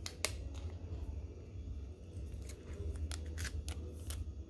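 A phone's plastic protective film and its cardboard box being handled as the phone is lifted out of the packaging: scattered crinkles and clicks over a low handling rumble.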